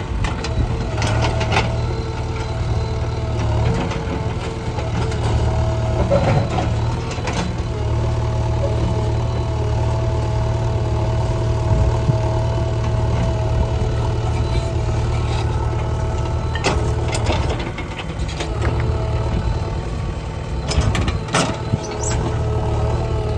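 JCB 3DX backhoe loader's diesel engine running steadily while the machine works, with a few short knocks along the way.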